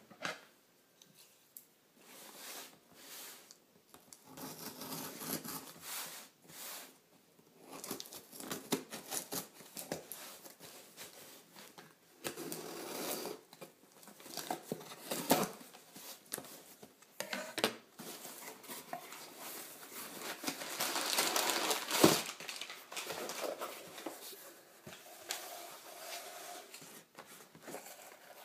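Cardboard shipping box being opened by hand: scissors slitting the packing tape, flaps pulled open, and crumpled brown packing paper rustling as it is pulled out. The rustling and scraping come in irregular bursts, with one sharp knock about two-thirds of the way through.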